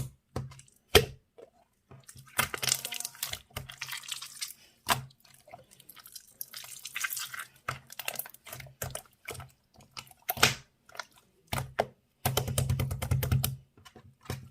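Slime being squeezed and pressed by hand: irregular sticky clicks and crackling pops in bursts, with short pauses between.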